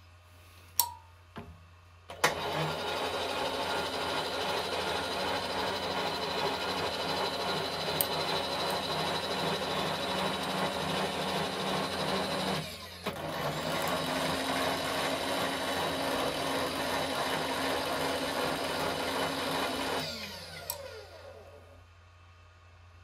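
Milling machine table power feed running as it traverses the table to the next valve guide, after a few clicks of the controls. It stops for a moment about halfway through, runs again, then winds down to a stop with a falling pitch.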